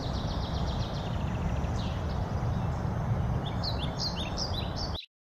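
Small birds chirping over a steady low rumble of outdoor background noise, all cutting off suddenly about five seconds in.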